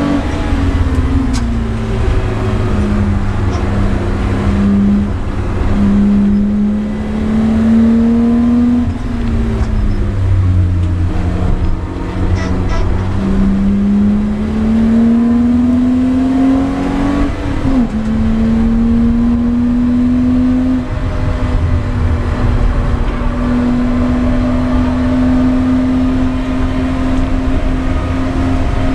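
BMW E30 325i's 2.5-litre straight-six running hard under load, heard from inside the cabin. Its pitch climbs steadily and drops back repeatedly, most sharply about 9 and 17 seconds in, as the car accelerates, shifts and slows for corners.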